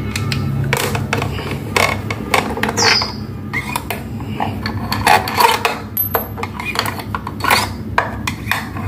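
Metal hand tool clicking and scraping against the screws of an industrial sewing machine's side cover as they are undone, with a short high squeak about three seconds in.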